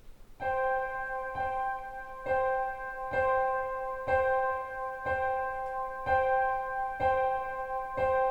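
Intro of a song played through hi-fi loudspeakers in a room: a keyboard, like an electric piano, strikes the same sustained chord about once a second.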